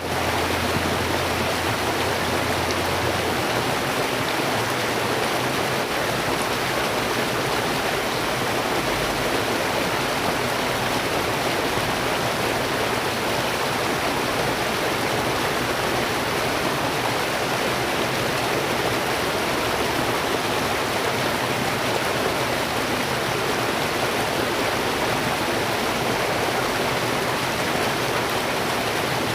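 Steady rushing of flowing stream or river water, an even noise that does not change, with a faint low hum in the first few seconds.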